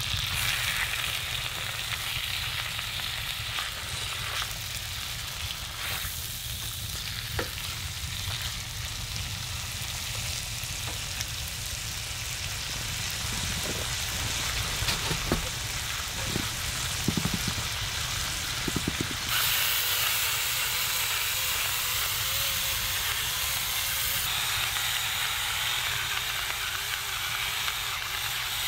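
Raw chicken pieces sizzling and frying in a large cast iron skillet on a wood-burning camp stove. Tongs scrape and move the meat at first, a few light clicks and taps come midway, and the sizzle grows brighter about two-thirds of the way through.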